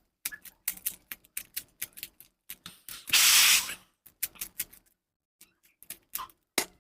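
Plastic Rubik's cube layers being turned quickly by hand to scramble it: rapid clicking and rattling that thins out in the last couple of seconds. Just after three seconds in, a loud rushing noise lasts about half a second.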